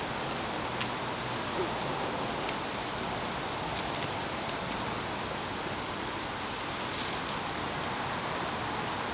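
Steady rushing noise like running water, with a few faint clicks and rustles as twine is wound tightly around a split wooden stick.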